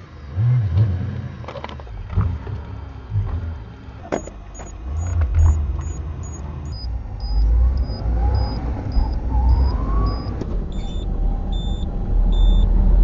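A car's low, steady rumble heard from inside the cabin, with a few sharp clicks. Around the middle there is a run of quick high-pitched electronic beeps, about three a second; a faint rising whine follows, and near the end slower beeps come about once a second.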